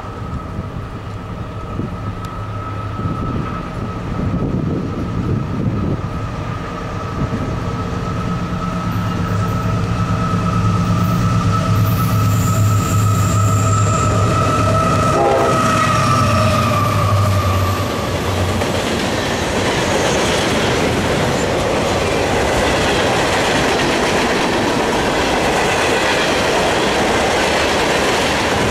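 A diesel freight train approaches sounding its horn in a long, steady blast, the locomotive's engine throb growing louder as it nears; the horn stops about 18 seconds in, and the passing freight cars then roll by with a steady rumble and clatter of wheels on rail.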